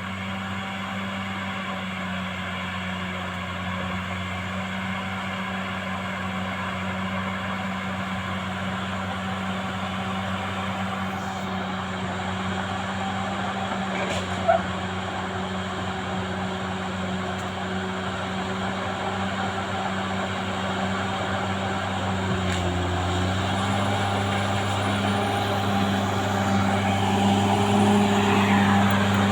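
Caterpillar D6R XL bulldozer's diesel engine running steadily. A single sharp click comes about halfway through. The note dips briefly a little before the end, then rises and grows louder.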